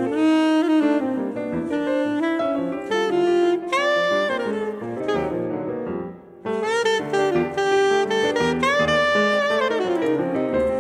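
Soprano saxophone playing a jazz melody over grand piano accompaniment, some notes sliding in pitch. The saxophone line breaks off briefly about six seconds in, then comes back in with a new phrase.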